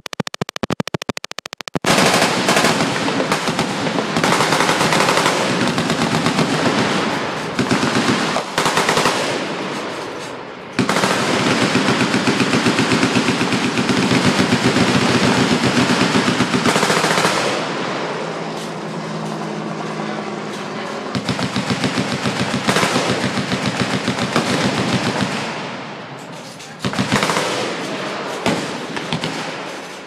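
Machine-gun fire: long fully automatic bursts, nearly continuous, with a few short lulls between them.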